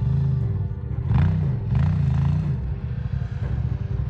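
Ducati motorcycle engine revving up and down several times in quick succession, then settling into a steady run.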